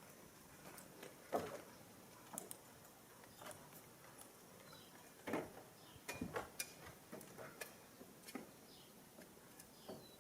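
Scattered light knocks and clicks at an irregular pace, the strongest about a second in and again around five to six seconds in.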